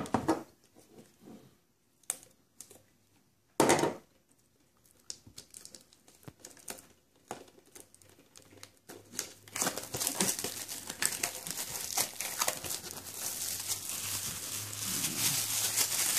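Clear plastic shrink wrap being worked loose and peeled off a Blu-ray steelbook case, then crumpled in the hand: a few separate crackles and snaps at first, then steady crinkling for the last six seconds or so.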